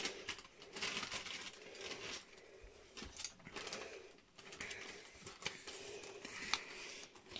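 Clear plastic zip-lock bag being pulled open and handled, its plastic crinkling and rustling in uneven bursts.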